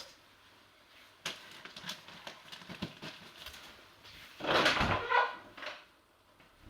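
Homemade foley sound effects: a run of small clicks and knocks, then a louder rustling, creaking noise lasting over a second.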